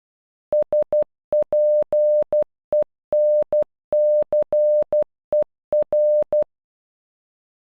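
Computer-generated Morse code: a single steady mid-pitched beep keyed on and off in short dots and longer dashes, spelling SPENCER (... .--. . -. -.-. . .-.) at normal speed, with a slight click at each start and stop of the tone.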